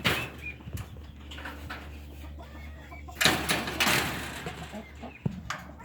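Poultry calling in short chirps, with two louder rustling bursts, one at the start and one about three seconds in.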